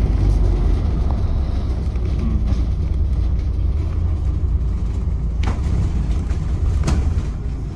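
Bus driving along a city street, heard from inside: a steady low engine and road rumble, with two sharp knocks or rattles in the second half.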